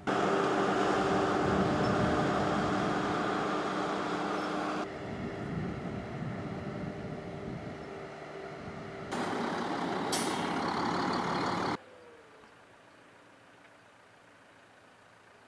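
A tractor-drawn corn silage harvester running while it cuts sage and blows the chopped crop into a truck: a loud, steady mix of engine hum and machinery noise. About twelve seconds in it cuts off suddenly to faint open-field background.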